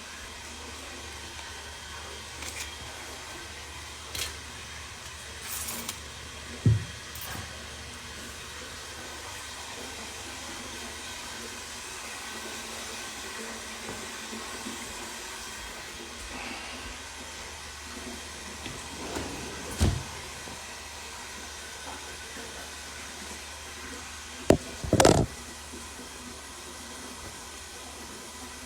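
Steady background hiss with a low hum, broken by a few short knocks and clicks, the loudest a double knock near the end.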